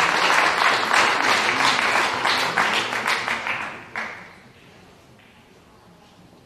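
Audience applauding, many hands clapping at once, breaking off abruptly about four seconds in.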